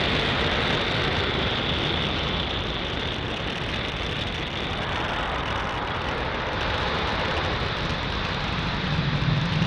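Falcon 9 first stage's nine Merlin engines during ascent: a steady rocket roar, dipping a little in the middle and swelling again near the end, where a lower tone joins in.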